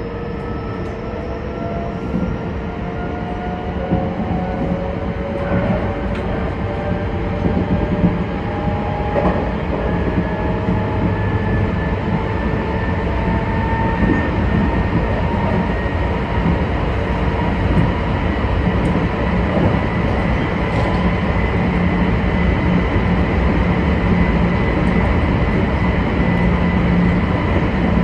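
Meitetsu 2200-series electric train heard from the cab: the traction motors' whine, several tones together, slowly rises in pitch and grows louder as the train gathers speed, over a steady wheel-and-rail rumble.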